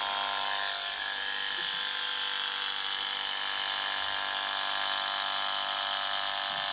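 Electric horse clippers running with a steady, even buzz.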